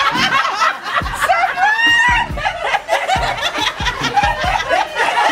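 A group of women laughing together, with a high squealing laugh about two seconds in.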